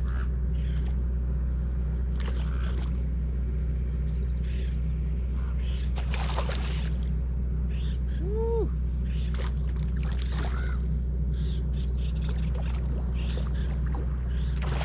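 Steady low wind rumble on the microphone while a hooked rainbow trout is reeled in from the shore, with short irregular noises scattered through it. About eight and a half seconds in comes one short tone that rises and falls.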